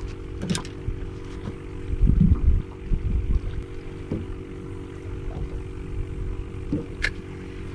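Small boat's motor humming steadily under low wind and water rumble, which swells loudest about two seconds in, with a few light clicks.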